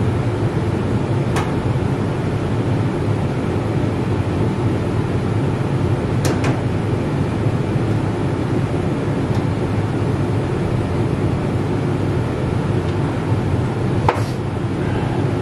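Home furnace running with a steady low rumble. Three sharp clicks come through it: about a second in, around six seconds, and near the end.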